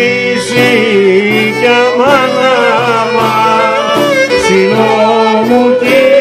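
Live Greek folk music: a violin leading the melody over a laouto and a santouri, with a woman singing into a microphone.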